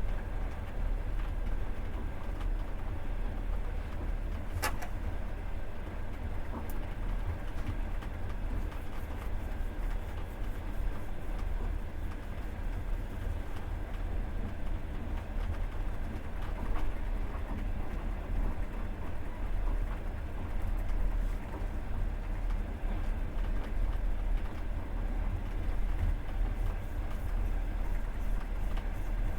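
Passenger train running, heard from inside the carriage: a steady low rumble of wheels on the rails, with a single sharp click about five seconds in.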